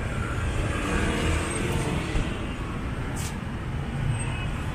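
Street traffic ambience: a steady rumble of engines and road noise, with a short hiss about three seconds in.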